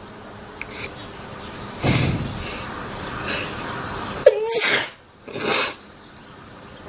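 A woman sneezing: a breath about two seconds in, then a sharp, voiced sneeze a little past four seconds, followed about a second later by a second, shorter burst.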